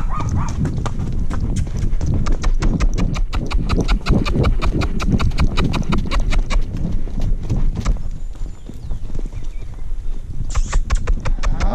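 Horses' hooves clip-clopping at a walk on a dry, stony dirt trail, a quick, steady run of hoofbeats over a low rumble. The hoofbeats thin out about eight seconds in and pick up again near the end.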